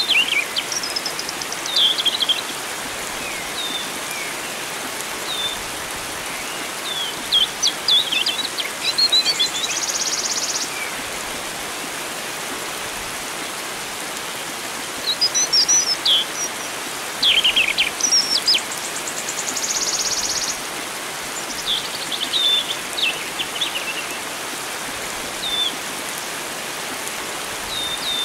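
Wild birds singing, scattered short chirps and quick trills, over a steady rush of flowing water.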